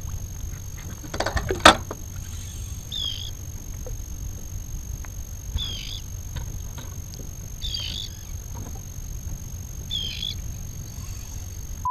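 Steady outdoor rumble of wind and water on an open boat, under a faint constant high whine. About a second and a half in comes a quick clatter of clicks ending in one sharp knock. Four brief high chirps follow, a couple of seconds apart.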